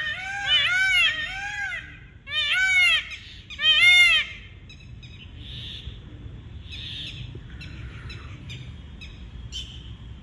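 Indian peafowl (peacock) calling: loud, repeated arching honks in quick groups of two or three, stopping about four seconds in. Faint small-bird chirps follow.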